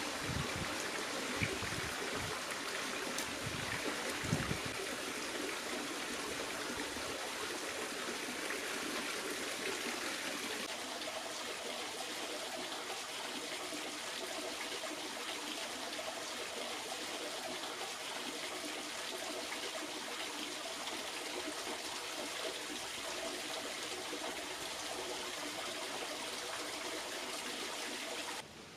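Creek water running steadily over rocks, a constant rushing trickle, with a few low thumps in the first few seconds. The sound shifts slightly about eleven seconds in.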